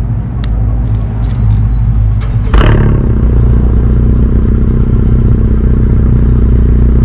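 Car engine running with a steady low drone. A short rushing burst about two and a half seconds in, after which it runs louder and steadier.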